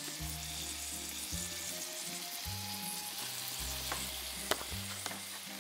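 Salmon fillet sizzling steadily as it fries in olive oil in a frying pan, with a couple of light clicks about four seconds in.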